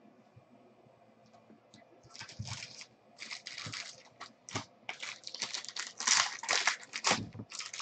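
Trading-card pack wrappers crinkling and tearing as hands open them. The irregular crackle starts about two seconds in and grows louder near the end.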